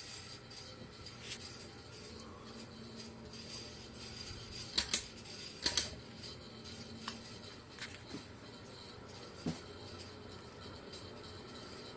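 Industrial ceiling fan running with a steady hum, broken by irregular metallic clicks and ticks, the clicking a sign of bad bearings.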